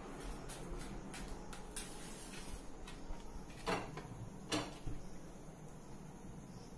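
Small clicks and knocks of a gas stove being lit, its knobs turned and a flame struck, with two louder sharp clicks a little past the middle.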